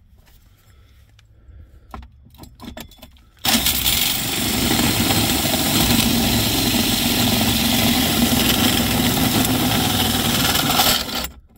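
A 20V cordless drill turning a 3-inch hole saw through a hard plastic cupholder, set to a higher speed. A few light handling clicks come first. About three and a half seconds in the cut starts suddenly and runs loud and steady for about seven and a half seconds, then stops abruptly once the saw is through the plastic.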